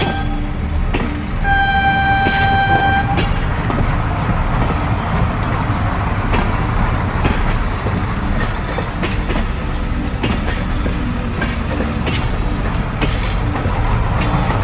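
Steam locomotive running: its whistle blows for about a second and a half, starting about one and a half seconds in, then the train rumbles on steadily with the clickety-clack of wheels over the rails.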